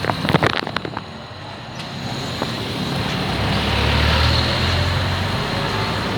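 A motor vehicle passing close by on the street. Its engine hum swells to a peak about four seconds in, then fades. A few sharp clatters come in the first second.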